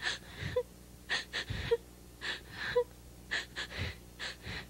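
A person's voice making short, breathy gasping sounds, about a dozen in quick succession.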